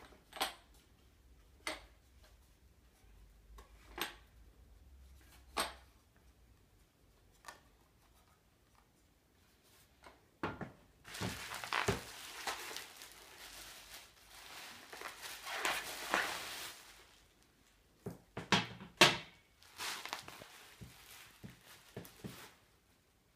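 Unpacking sounds: a few light knocks and taps as a wooden box is handled, then plastic bubble wrap crinkling and rustling for several seconds. Near the end come a couple of louder thunks on the tabletop, followed by more crinkling of the wrap.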